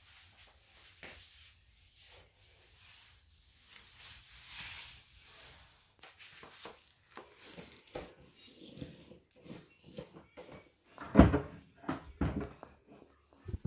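Mop working over a tiled floor and pushed into the gaps under the laundry appliances: soft scraping and swishing with scattered light knocks, then two louder knocks near the end as the mop hits the appliances.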